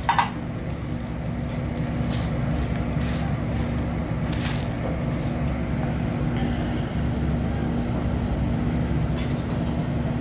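Steady low drone of a ventilation fan with a constant hum, likely the exhaust hood over the hibachi griddle, with a few brief high scrapes or hisses.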